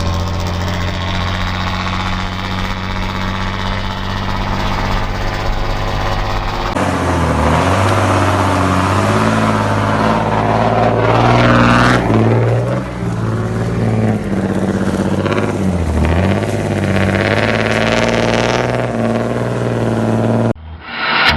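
Mercedes-Benz truck diesel engines, whose turbochargers are fitted with a 'pente' (comb) in the intake to make them sing. The first one runs steadily. After a cut about seven seconds in, an engine is revved several times, its note dropping and rising, with a rising turbo whine peaking about halfway through.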